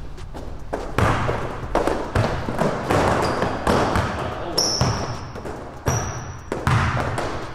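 Basketball being dribbled on a hardwood gym floor, a string of irregular bounces, with sneakers squeaking on the wood twice in the second half.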